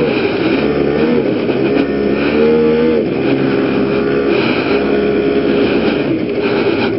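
PGO Rattler 110cc two-stroke scooter engine running under way, its pitch rising and falling several times with the throttle.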